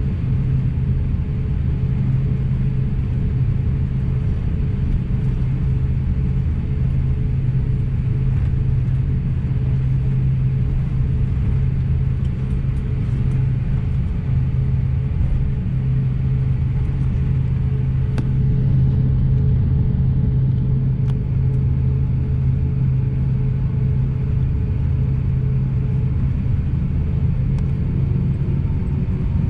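Steady cabin rumble inside an Airbus A350-900 in flight, from its Rolls-Royce Trent XWB engines and the airflow, with a constant low engine hum.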